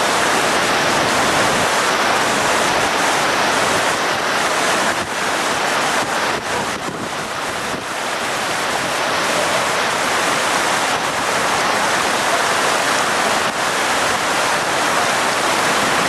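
Fast whitewater rushing over rocks below a waterfall: a loud, steady rushing noise with no break.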